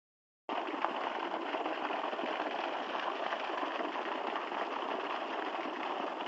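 Steady rush of water gushing from a solar irrigation pump's outlet pipe. It starts abruptly about half a second in.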